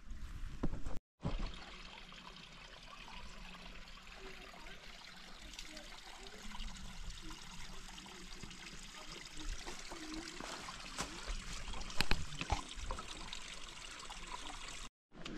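Small stream trickling steadily over rocks, with a few sharp knocks in the second half.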